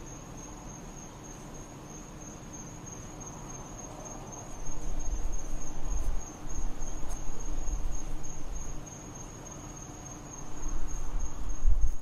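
Crickets chirring in one steady high-pitched drone. Bouts of low rumbling come in from about four and a half seconds on and are the loudest sound.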